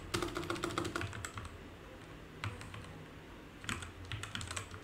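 Typing on a computer keyboard: a quick run of key clicks, a pause of about two seconds, then more keystrokes near the end.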